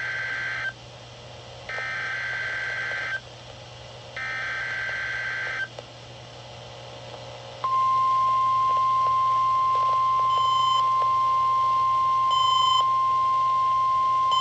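NOAA Weather Radio Required Weekly Test over a weather-radio receiver. Three short warbling data bursts (the SAME header) are separated by pauses. About eight seconds in, the steady 1050 Hz warning alarm tone starts and holds. Short higher beeps sound over it about every two seconds.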